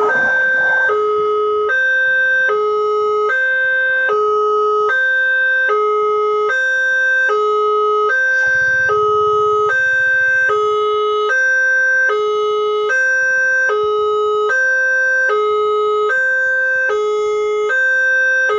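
Railway level-crossing siren, a Multec TC electronic siren module sounding through a horn loudspeaker, giving its warning for an approaching train. It alternates steadily between a lower and a higher tone, switching about every 0.8 seconds. A faint low rumble joins it for a couple of seconds about eight seconds in.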